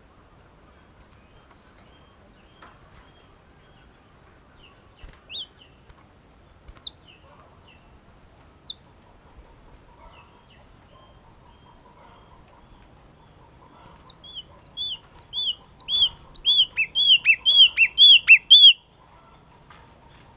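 Yellow-cheeked tit calling: a few single sharp, falling chirps a second or two apart, then, past the middle, a fast run of arched chirps that speeds up for about five seconds and stops abruptly. The run is the loudest part.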